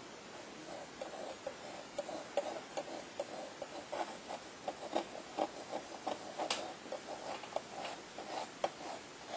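Palette knife scraping and dabbing paint on a board: rapid, irregular short scrapes and ticks, with a few sharper taps.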